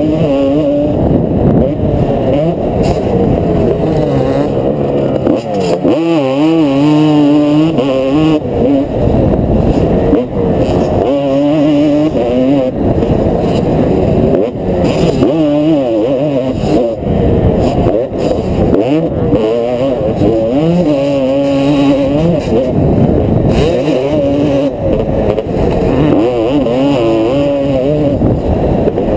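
Motocross dirt bike engine under hard riding, its pitch climbing and dropping again and again as the throttle is opened and shut and the gears change, heard from a helmet-mounted camera.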